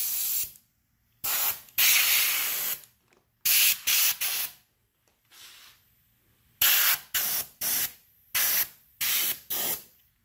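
Air-compressor blow gun hissing in short blasts of compressed air, blowing dust out of a mining rig's graphics cards. About a dozen bursts come in clusters of two or three, most a fraction of a second long and one held about a second, with gaps between them.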